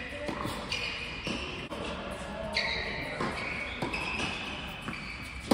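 Tennis ball bouncing and being struck by racquets on an indoor hard court: a string of short knocks, with a sharp one near the end, echoing in a large hall.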